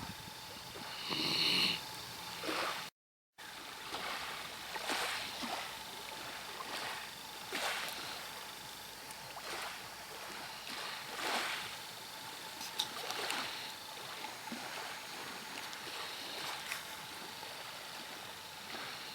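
Sleeping Doberman puppy snoring softly, a breathy snore every one to two seconds.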